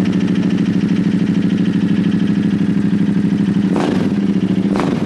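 Ducati Diavel motorcycle engine running loud on a ZARD aftermarket exhaust, a steady fast-pulsing note. Near the end come a few sharp cracks about a second apart.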